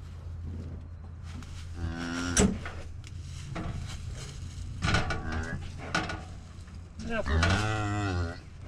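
Beef cow mooing, a short call about two seconds in and a longer, louder one near the end: the calf's mother, close to the calf catcher. A steady low engine hum runs underneath, with a few sharp knocks.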